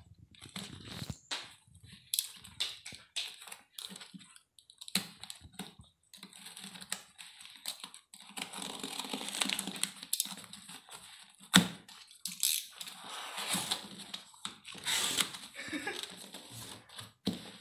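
Cardboard box being slit open with a box cutter and handled: scraping and rustling of the cardboard and packing tape, with scattered knocks and clicks and one sharp louder click about midway.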